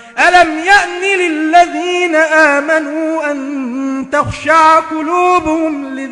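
A man's voice reciting the Quran in the melodic mujawwad style, drawing out long wavering notes. There is a short break about four seconds in before the next phrase.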